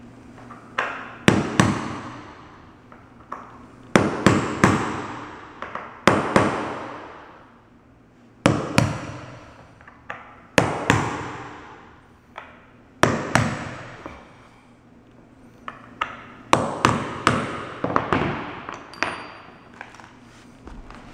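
Claw hammer driving finish nails into a pre-drilled oak threshold laid on a wood floor. The blows come in short runs of one to five sharp, ringing strikes with pauses of a second or two between runs.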